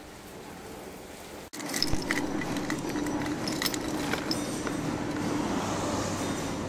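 A bunch of keys jangling, with several sharp metallic clicks as a key goes into the Kymco Racing 150 scooter's ignition lock and is turned, over a steady low hum.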